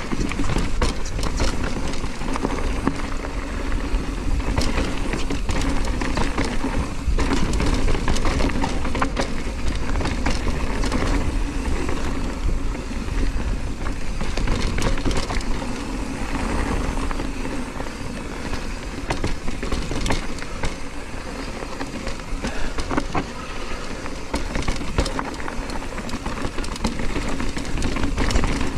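On One Scandal hardtail mountain bike riding fast down a loose dirt and stony trail: continuous tyre rolling noise with many small knocks and rattles as the bike goes over stones and bumps.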